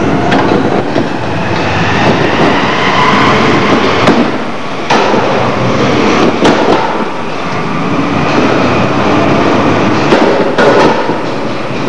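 Combat robots battling: a shell spinner's spinning weapon and the drive motors give a steady mechanical whirr with a faint whine, broken by sharp metal clanks of impacts, the loudest about four, six and a half and ten and a half seconds in.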